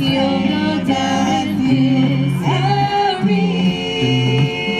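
Music with singing voices over a bass line that steps from note to note.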